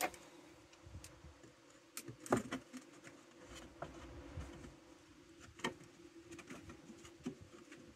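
Scattered clicks and knocks of a clamp and a plywood board being handled and set against a steel grain bin, over a faint steady hum.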